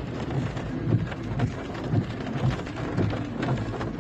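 Heavy downpour and running floodwater: a steady hiss of rain with many crackling drops and soft low rumbles underneath.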